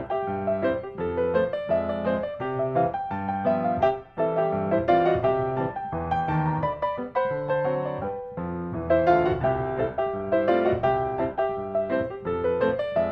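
Background music: a piano playing a melody of quick, evenly struck notes.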